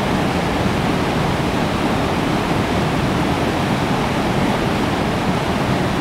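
Steady rush of the West Fork of the Pigeon River, a mountain stream, pouring over a waterfall and tumbling among boulders.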